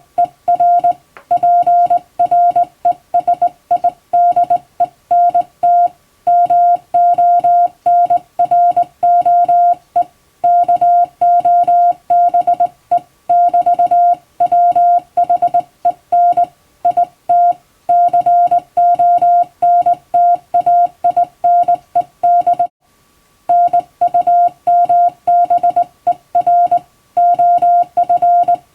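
Hand-sent Morse code in the Latin alphabet: a single steady tone keyed on and off in short dots and longer dashes at a brisk, even pace, with one short break late on.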